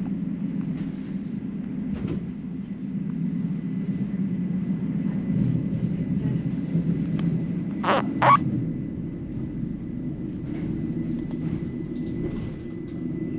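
Passenger train running, heard from inside the carriage: a steady low rumble with a faint steady high whine. Two sharp knocks about half a second apart come roughly eight seconds in.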